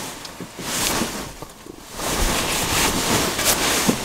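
Hushed, breathy whispering in two stretches, a short one about a second in and a longer one from about halfway.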